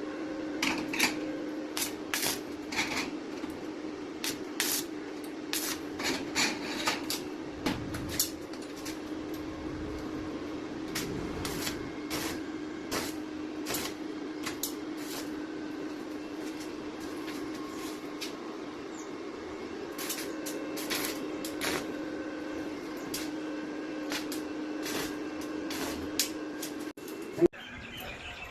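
A steady machine hum with many irregular sharp clicks and knocks over it; the hum cuts off suddenly near the end.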